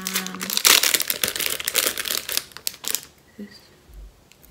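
Clear plastic packaging crinkling loudly as bangle bracelets are pulled out of their bag. The crinkling lasts about three seconds, then stops.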